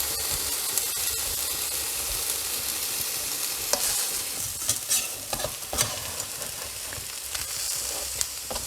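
Chickpea-flour wowpat frying in an oiled pan, a steady sizzle. A few short clicks or scrapes come about four to six seconds in.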